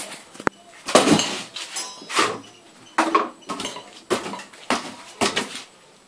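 Metal clanking and clinking: about a dozen irregular knocks and clatters with short scrapes, from tools working a steel crank arm off a bicycle's bottom bracket.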